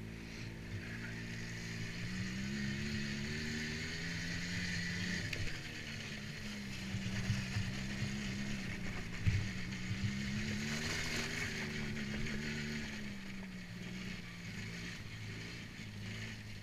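ATV engine running under way, its pitch rising and falling as the throttle is opened and eased off, with a steady hiss above it and a sharp knock about nine seconds in.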